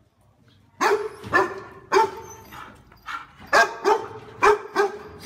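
A dog barking repeatedly: about eight short, loud barks in quick succession, starting just under a second in.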